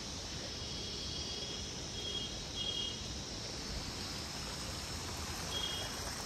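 Steady rush of a flowing mountain stream, with a few short, faint high chirps over it.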